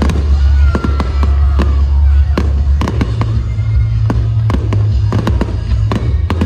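Fireworks display: aerial shells bursting in a rapid string of sharp bangs and crackles, several a second.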